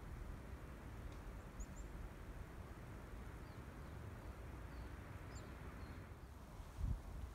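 A few faint, very short, high call notes from a chickadee, scattered through, over a low steady rumble.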